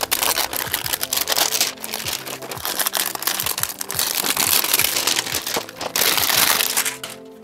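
Clear plastic shrink-wrap being peeled off a cardboard paint box and crumpled in the hands: a dense crinkling and crackling, loudest just before the end. Faint background music underneath.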